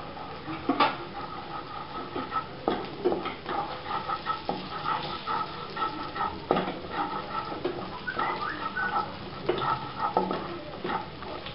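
Spatula scraping and stirring a paste of marinade frying in oil in a nonstick wok: irregular scrapes over a light sizzle of bubbling oil.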